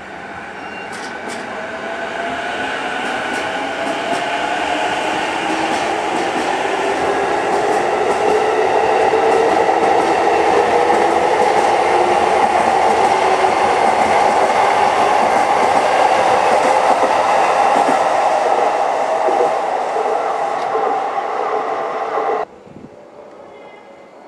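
Keiyo Line stainless commuter electric train running past on elevated track, its motor whine climbing slowly in pitch as it speeds up, over the rolling noise of wheels on the rails. The sound builds for several seconds, holds loud, then cuts off suddenly near the end, leaving a faint background.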